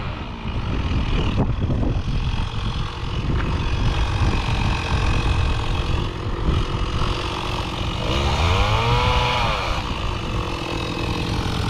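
An engine running steadily at idle, revved up and back down once about eight seconds in.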